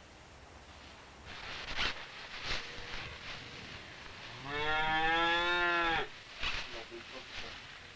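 A cow mooing once, a single call of about a second and a half near the middle, with a few scattered knocks and rustles before and after it.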